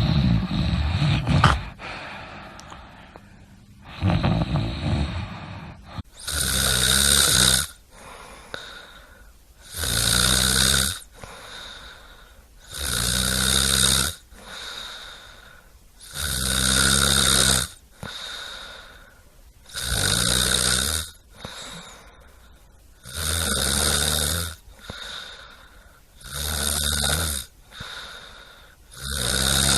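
A person snoring. After two irregular, noisier breaths in the first few seconds, the snores settle into a steady rhythm of about one every three and a half seconds, each with a deep buzz and a hissing edge.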